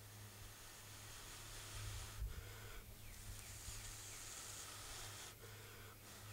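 A person blowing hard into a tinder bundle to coax a hand-drill ember into flame. It is a rushing breath noise in several long blows, with short breaks for breath about 2, 3 and 5.5 seconds in.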